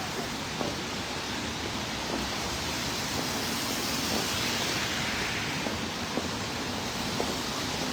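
Steady hiss of heavy rain on a city street, swelling briefly about four to five seconds in, with faint scattered ticks.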